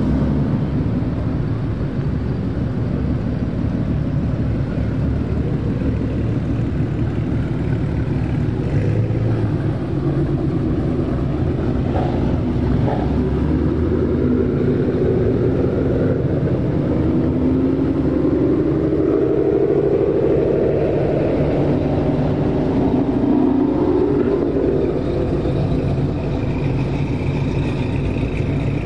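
Ford Mustang engines rumbling as a stream of cars drives past. Past the middle, one engine climbs in revs for several seconds.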